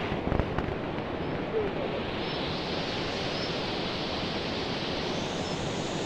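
Mountain river rushing over boulders and rapids, a steady even roar of water. A few short knocks in the first second.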